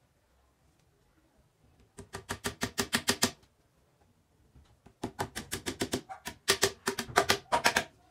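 Hammer tapping wooden dowels into holes along the edge of a hardwood board: quick, light, evenly spaced strikes, several a second. They come in two runs, one starting about two seconds in and lasting about a second and a half, the other starting about five seconds in.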